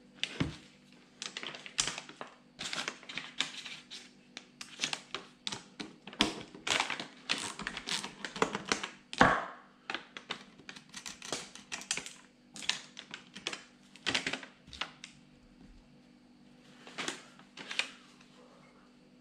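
Irregular clicking and knocking of metal parts as a Peugeot/Citroën HDi 136 starter motor is handled and worked on by hand on a sheet of paper, with one louder knock about nine seconds in. It goes quiet near the end, broken by two more clicks.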